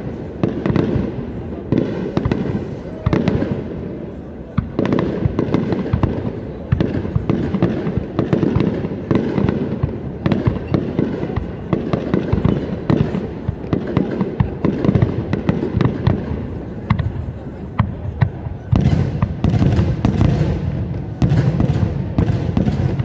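Aerial fireworks display: shells bursting in quick succession, a rapid, irregular string of bangs with crackle, packing tighter near the end.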